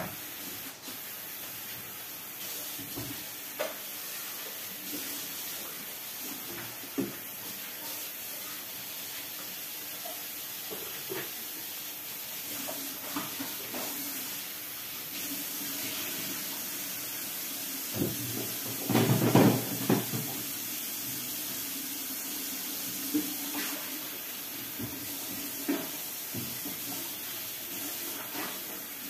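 Kitchen tap running into a sink while dishes are washed by hand, with scattered clinks and knocks of dishware and a louder clatter about two-thirds of the way through.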